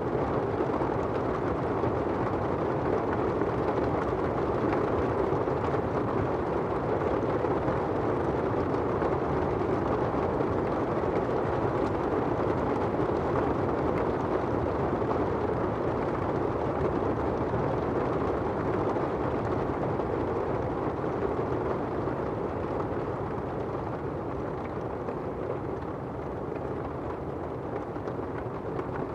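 Steady rain drumming on an umbrella and falling on wet pavement, an even noise that eases slightly near the end.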